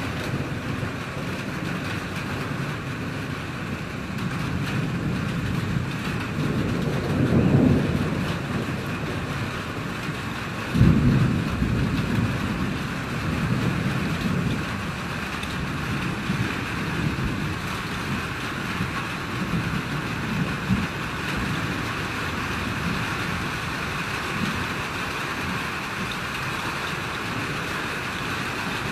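Thunder rumbling over steady rain. A rolling rumble swells about seven seconds in, then a sudden, louder clap near eleven seconds trails off into a long rumble.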